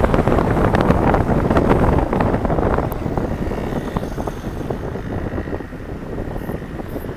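Road traffic noise, loudest over the first few seconds and then easing off as it recedes.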